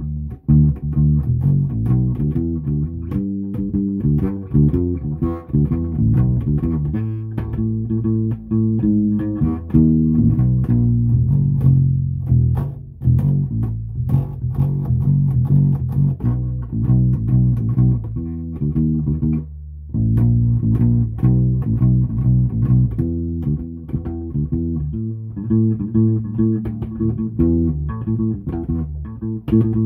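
Semi-hollow electric bass guitar played solo, a continuous, freely improvised line of plucked notes, with a short break about two-thirds of the way in.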